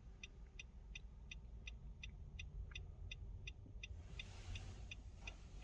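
Short, high-pitched electronic ticks from a 2016 Nissan Rogue's dashboard, evenly spaced at about three a second, over a low steady rumble in the car's cabin.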